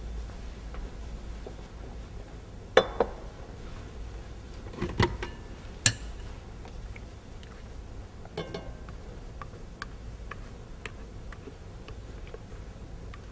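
A glass mixing bowl and other kitchenware being handled and set down on a stone counter: a few sharp clinks and knocks about three, five and six seconds in, a smaller clatter a little later, then only light taps.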